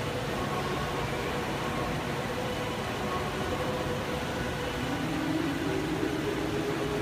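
Steady hum and hiss of machinery or moving air, with faint steady tones over it and faint wavering tones near the end.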